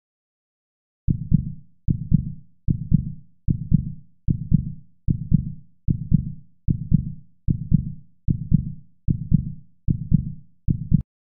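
Heartbeat sound effect marking a quiz countdown timer: about thirteen low double thumps, evenly spaced a little under a second apart, starting about a second in and stopping just before the end.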